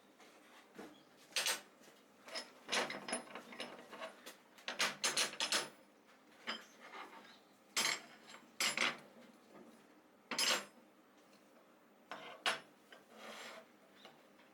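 Scrap iron pieces being handled and set down, making irregular metallic clanks and knocks, some with a light ringing.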